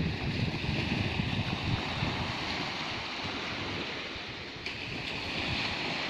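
Sea surf washing steadily, with gusts of wind buffeting the microphone in low rumbles.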